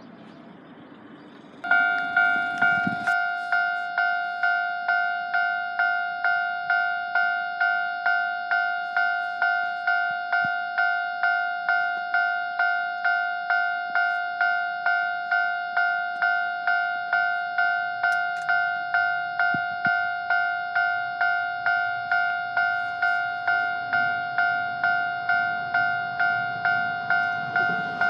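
Japanese railway level-crossing warning bell starting up about two seconds in and then ringing steadily at about two strikes a second, signalling that a train is approaching.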